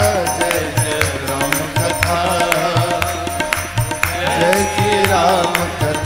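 Devotional Ram Katha bhajan music between sung refrain lines: held instrumental notes over a steady drum beat, with the congregation clapping in time. A voice comes back in about four seconds in.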